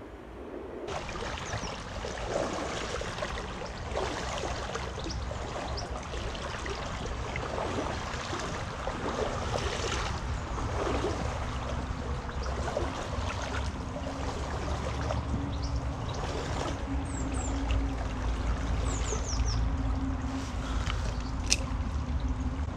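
River water running and trickling in a steady rush, over a low rumble. A few short bird chirps come near the end.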